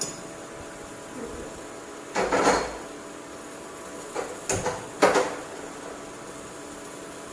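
Metal cooking pot clattering on a gas stove as it is set down and handled: a couple of knocks about two seconds in, then a cluster of sharper clanks near the middle.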